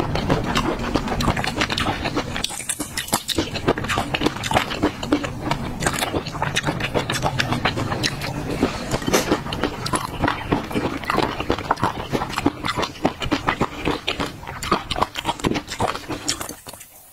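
Close-miked ASMR eating of thick peanut sauce: a plastic spoon scraping around a glass bowl, mixed with wet, sticky mouth sounds. It is a dense run of small clicks and smacks that stops shortly before the end.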